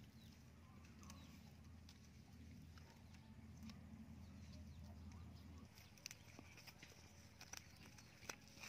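Near silence: faint outdoor ambience with a low hum that fades a little past halfway, then a few faint clicks near the end.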